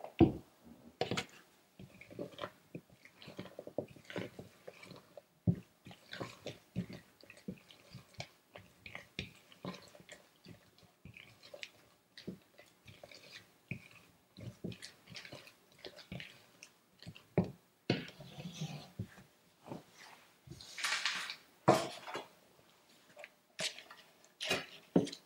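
Spatula folding blueberries into thick almond-flour batter in a mixing bowl: irregular soft squelching and scraping strokes, with a few louder scrapes and knocks in the last several seconds.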